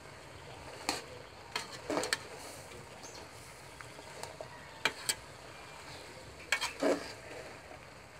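A long metal spoon and ladle stirring soup in an aluminium pot, with scattered sharp clinks and knocks against the pot, some in quick pairs, over a faint steady hiss.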